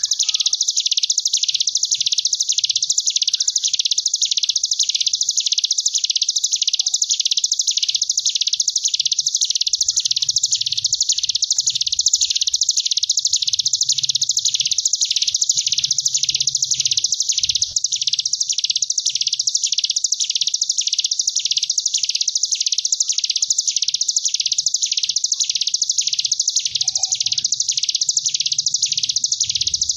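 Ciblek gunung (hill prinia) giving its 'ngebren' song: a long, unbroken, high buzzing trill like a bee. It swells and eases in even waves a little more than once a second.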